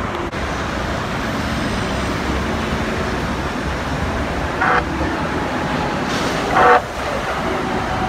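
Metro light-rail train arriving at a platform over steady road-traffic noise, sounding two horn blasts: a short one about four and a half seconds in and a longer one a couple of seconds later.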